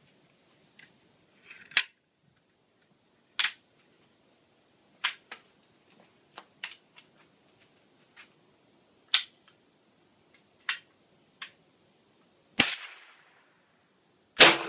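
An M6 Scout rifle in .22 Hornet being handled: a series of short, sharp mechanical clicks and knocks. Near the end come two gunshots about two seconds apart, the second the loudest, each with a fading echo.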